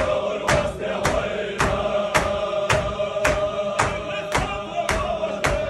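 A group of men chanting a Chechen Qadiri zikr in unison, one held melodic line, over steady hand-clapping at about two claps a second.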